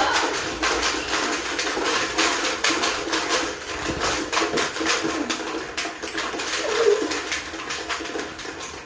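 Small plastic balls rattling rapidly and irregularly inside plastic containers worn at the waist, shaken by hip-swinging.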